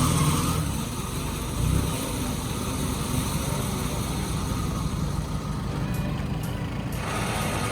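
Vehicle engine running steadily with a low rumble, briefly louder just before two seconds in.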